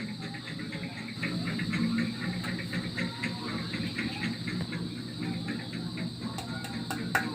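Crickets chirping: a steady high trill with rapid short chirps layered over it, above a faint low hum.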